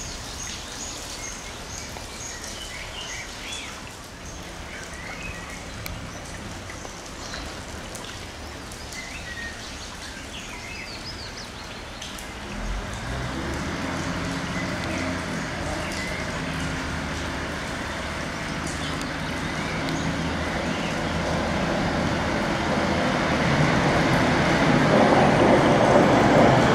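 Steady rain hiss with birds chirping, then about halfway in the low hum of a Class 150 Sprinter diesel multiple unit's engine comes in and grows steadily louder as the unit approaches.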